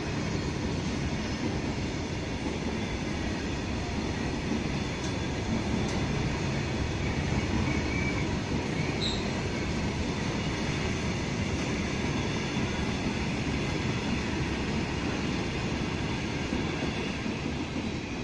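An Indian Railways goods train of covered boxcar wagons rolling past, making a steady rumble of steel wheels on the rails. The sound eases slightly at the very end as the last wagon and brake van go by.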